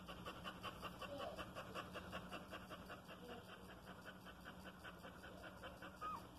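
Nursing mother dog panting quickly and evenly, about five breaths a second. A newborn puppy gives one short, high, rising squeak near the end.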